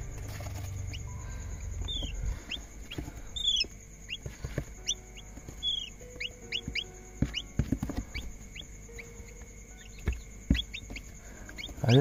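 Quail chick peeping in short, high chirps that fall in pitch, several a second, with a few louder chirps, while metal tweezers give scattered clicks and rustles in wood-shaving bedding.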